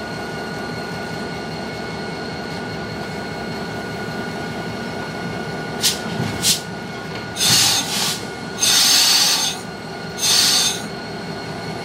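Freight train cars rolling past with a steady rumble and a faint steady ringing. From about six seconds in come two short, sharp squeals, then three longer, loud, high-pitched wheel squeals.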